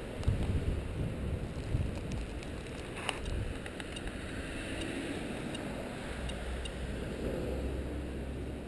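Handheld SOEKS Geiger counter clicking irregularly, roughly once a second, each click counting a detected radiation particle at background level. Under the clicks is a low rumble, with a few bumps near the start.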